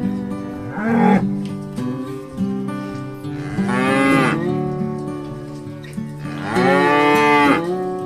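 Water buffalo mooing: three calls, a short one about a second in, then two longer, drawn-out ones around the middle and near the end, over soft guitar music.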